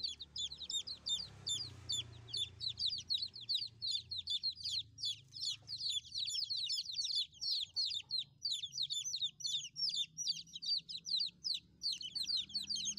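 Baby chicks peeping: a continuous run of loud, high, downward-sliding peeps, several a second, the calling of chicks separated from their hen.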